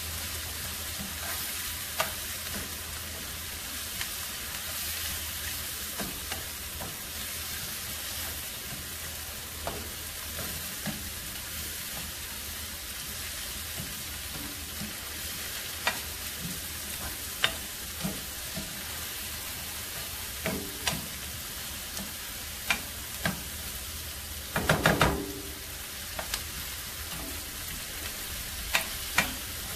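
Diced green bell pepper, onion and mushrooms sizzling in a non-stick frying pan as they are stirred with a spoon. The spoon knocks against the pan now and then, with a quick run of louder knocks about 25 seconds in.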